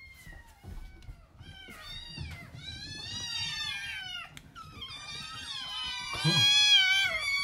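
A litter of young kittens meowing over one another in high-pitched cries, starting a little after a second in and getting louder, loudest near the end.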